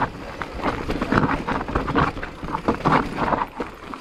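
Specialized Turbo Levo e-mountain bike riding over rock, its tyres rolling and the bike rattling and knocking in quick, irregular bursts.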